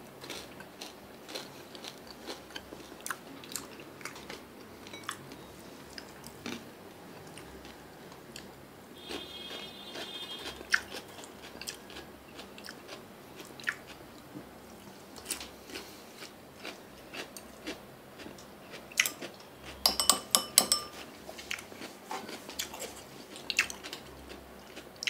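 Close-up chewing and crunching of crunchy food, with scattered small crisp clicks. About twenty seconds in comes a quick run of ringing clinks, like chopsticks knocking against a dish.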